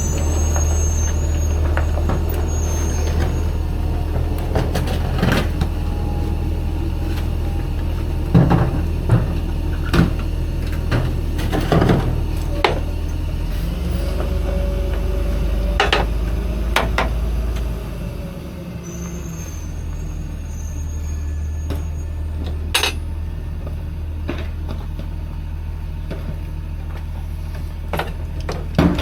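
Garbage truck running close by: a steady low engine rumble that eases about eighteen seconds in, with scattered sharp knocks and brief high squeals.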